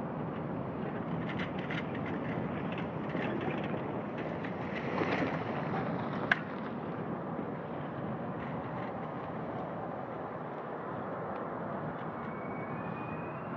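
Jet engines of a Boeing 777 freighter running at low thrust as it turns onto the runway, a steady rumbling hiss heard across the airfield, with one sharp click about six seconds in. Near the end a rising whine begins as the engines start to spool up for the takeoff roll.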